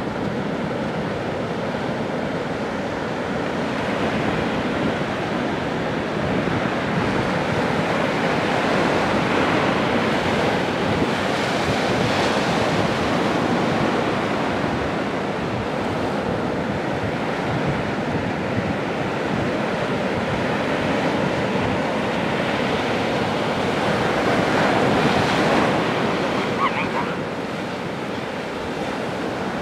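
Pacific Ocean surf breaking on a sandy beach: a continuous rush of waves that swells about a third of the way in and again near the end, with wind on the microphone.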